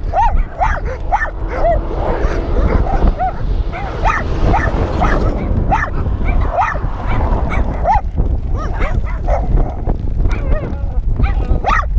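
Dogs yipping and whining in a rapid string of short calls, a couple a second, as they greet another dog, over a steady low rumble.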